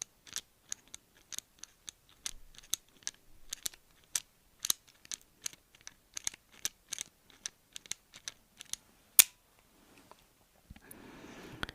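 Small metal pliers-like hand tool worked open and shut close to the microphone, making an irregular run of sharp clicks, a few a second. One much louder snap comes about nine seconds in, and a soft hissing rustle starts near the end.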